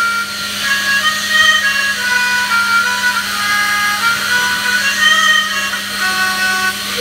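An old hand air pump played as a musical instrument: a moistened thumb over its outlet gives high, squeaky whistling notes that step from pitch to pitch in a slow tune, over a steady low hum.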